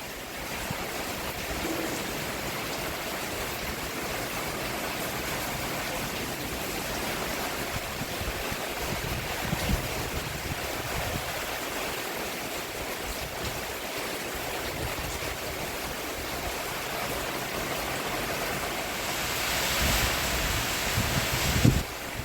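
Steady rain falling on a roof: an even hiss with a few brief low knocks, growing louder for a couple of seconds near the end.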